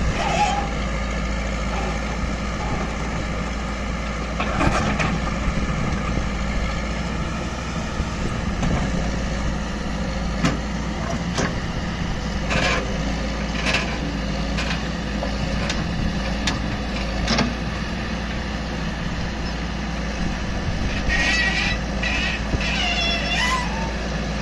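Heavy diesel engine running steadily, with scattered short knocks and clanks, and brief wavering pitched sounds near the end.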